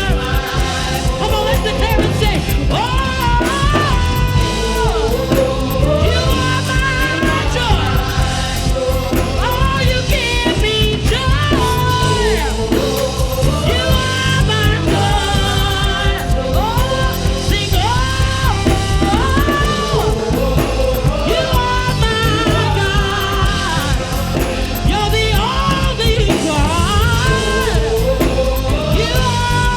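Worship band music: a melody line sung with bends and vibrato over a full band with a steady bass.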